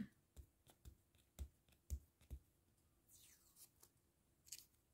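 Faint clicks of fingernails picking at the edge of a roll of washi tape to find its end, about five light ticks over two and a half seconds, then a brief faint scratchy rasp near the end as the tape end lifts.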